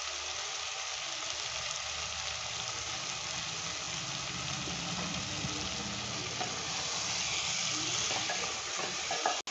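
Chicken pieces sizzling steadily as they sauté in oil and masala in a nonstick pot, with a low hum underneath. A wooden spatula stirs through them near the end.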